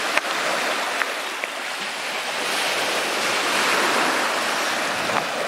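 Small sea waves washing in over rocks and pebbles, the rush swelling toward the middle and easing again, with a few faint clicks.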